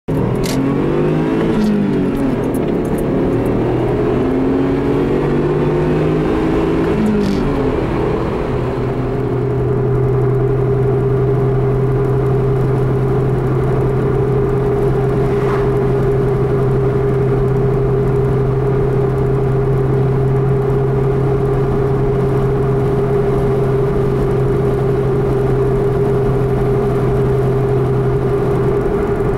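A car cruising at a steady speed, heard from inside the cabin: a steady engine drone. For the first several seconds, several engine notes rise and fall over one another, then settle into the one steady drone.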